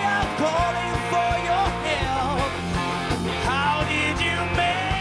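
Live pop-rock band playing: steady drum beat and bass under guitars, with a gliding melody line over them.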